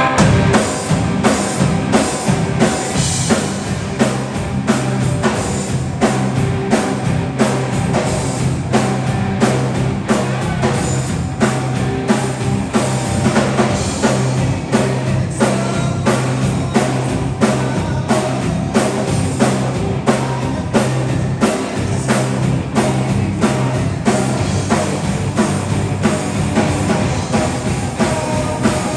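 Live rock band playing a song: drum kit keeping a steady beat under electric guitars, bass guitar and keyboard.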